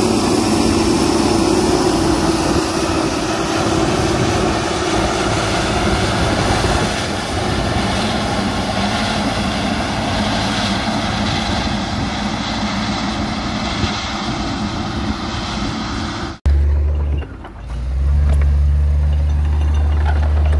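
Diesel engine of heavy road-building machinery running steadily. About sixteen seconds in, the sound cuts off abruptly and a deeper, steady engine drone takes over.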